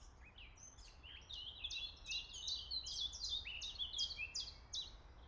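Songbird chirping: a fast run of short, high chirps, about four to five a second, growing busier about a second in and fading near the end.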